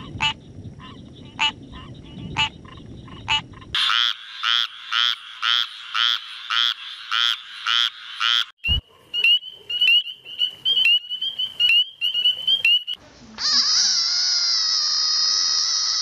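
A string of different frogs calling, one after another. First come short calls spaced about a second apart, then a quicker run of pulsed croaks about two a second, then a rapid clicking rattle over a thin high tone. Near the end one long drawn-out cry lasts about four seconds, as a frog prodded by a finger screams with its mouth wide open.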